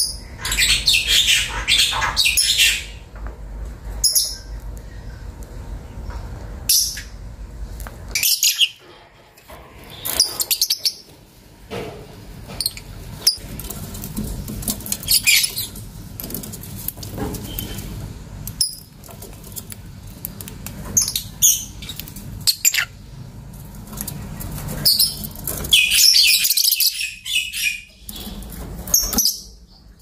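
Caged lovebirds chirping in shrill, high-pitched bursts of a second or two, scattered irregularly, with the longest bouts near the start and toward the end, over a low steady rumble.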